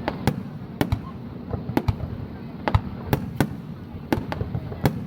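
Fireworks display bursting: an irregular run of sharp bangs, about a dozen in five seconds, over a steady low rumble.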